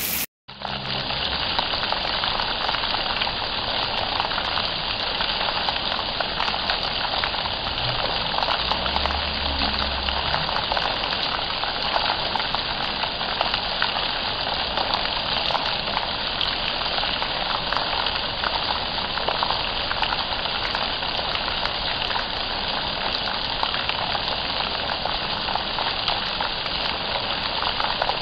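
Heavy rain falling in a steady, dense hiss with fine crackling drops, starting just after a brief gap.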